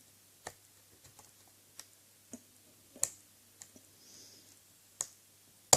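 Lock pick working the pins of a 50 mm Corbin padlock under light tension: scattered small, sharp clicks of pins being lifted and setting as the lock is worked toward a false set, the sharpest click near the end.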